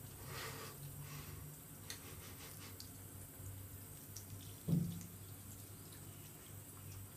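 Thin stream from a bathroom tap trickling and splashing onto a wet cat in a sink. There is one brief, louder low bump about two-thirds of the way in.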